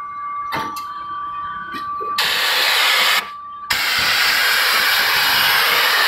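Super Gun SG220 pneumatic vacuum/blow gun triggered twice, with compressed air hissing through it: a burst of about a second, then a longer burst of about two and a half seconds. The gun is set to vacuum to pick up metal shavings.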